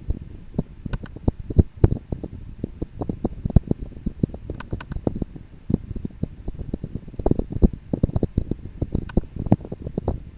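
Typing on a computer keyboard close to the microphone: a fast, irregular run of taps and knocks.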